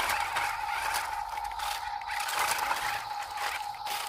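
Small electric motor and gears of a toy RC rock crawler whining at a steady pitch as it strains to tow a toy dump truck on a chain, with its tyres scraping and crunching in dirt and gravel.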